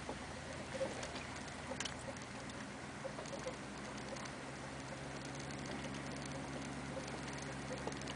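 Inside the cab of a 1991 GMC diesel Suburban rolling slowly along a rough dirt trail: the diesel engine's steady low drone, with light rattles and clicks from the truck bouncing over the ground.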